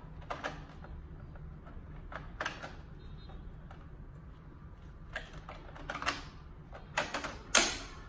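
Plastic clicks and knocks as the main brush rollers of an iRobot Roomba are pushed back into its cleaning head, a handful of separate clicks, with the loudest snap near the end as the rollers seat.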